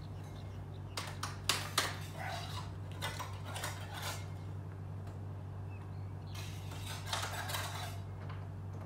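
Light metallic clinks and taps of hand tools on a metal sliding-door frame and track, then a longer scraping rub about six seconds in, over a steady low hum.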